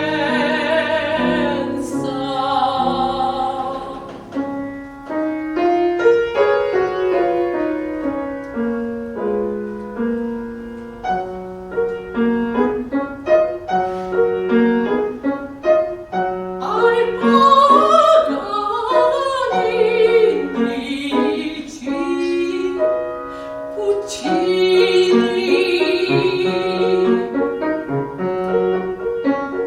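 Classical soprano singing with vibrato over piano accompaniment, with a stretch of piano alone in the middle before the voice comes back in.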